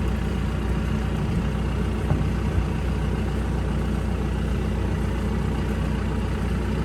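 John Deere 5125M tractor's diesel engine running at a steady, even speed, with a couple of faint ticks about two seconds in.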